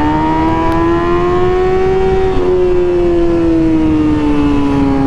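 Kawasaki ZX-6R inline-four with an M4 GP exhaust running under way. Its pitch rises slowly for about two seconds, then falls gradually as the bike slows.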